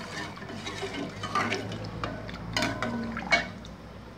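Metal ladle stirring hot soup in a stainless steel pot: the liquid sloshes, and the ladle clinks sharply against the pot a few times, loudest about three seconds in.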